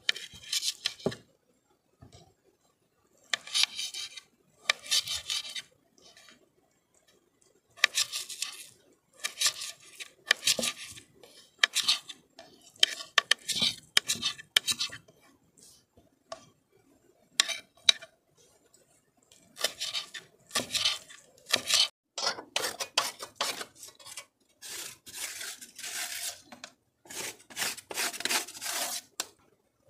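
Small kitchen knife slicing and chopping a tomato on a wooden cutting board, in short bursts of cutting strokes with pauses between. Near the end a large blade is rubbed back and forth on a stone.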